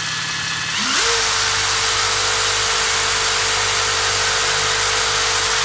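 Ryobi ONE+ 18V impact driver (PBLID02B) spinning free with no load, its motor running at part speed and then, about a second in, rising to full speed and holding one steady whine. At full speed the bit holder turns at about 2,975 rpm, a little above the maker's rating; with no load the impact mechanism does not hammer.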